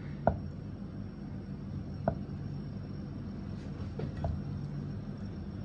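Cleaver slicing through soft tofu and tapping the wooden chopping board: two sharp taps about two seconds apart, then two fainter knocks about four seconds in, over a low steady hum.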